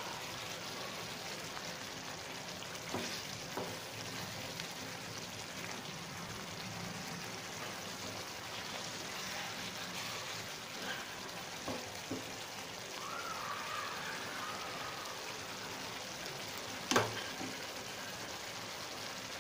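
Chicken curry sizzling steadily in a pan on the stove, its oil separating to the top as it nears done, while it is stirred with a wooden spatula. A few sharp knocks, the loudest near the end.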